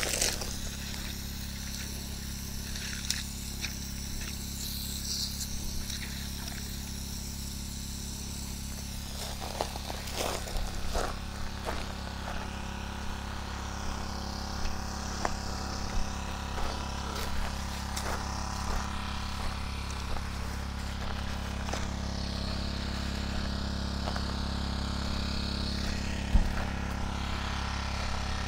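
Small petrol engine of a water pump running at a steady speed, a constant low hum, with scattered footsteps and rustling in dry grass and fallen olive leaves on top.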